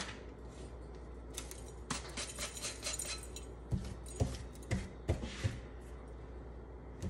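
A toaster's metal crumb tray being slid out and handled: scattered light clicks and scrapes, busiest in the first half, then a few short sharper knocks.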